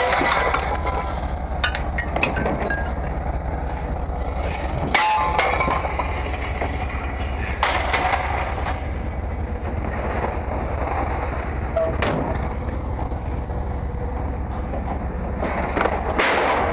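Scrap steel auto parts clanging and banging as they are unloaded, several sharp metal impacts with smaller clinks between, over the steady low rumble of an engine running.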